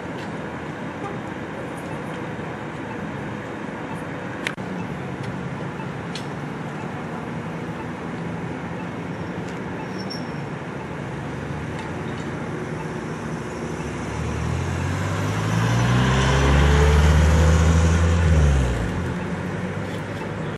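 Steady street traffic noise, then a vehicle drives past close by about fourteen seconds in. Its low engine note grows loud and drops in pitch as it goes by.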